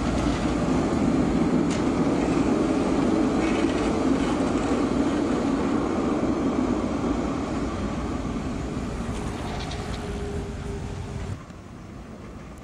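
Two-car electric tram passing close: the steady rumble of its wheels on the rails and its running gear, with a few faint clicks. It cuts off abruptly about eleven seconds in, leaving a quieter, more distant rumble.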